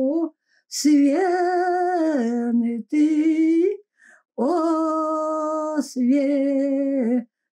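A woman singing an old Polish-language Lutheran prayer-song unaccompanied, in slow, long-held notes with a slight wobble, pausing briefly for breath between phrases.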